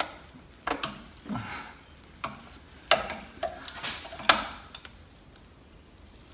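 Irregular metal clicks and clinks from a socket extension and ratchet being fitted into a cup-type oil filter wrench seated on the oil filter, about a dozen in all.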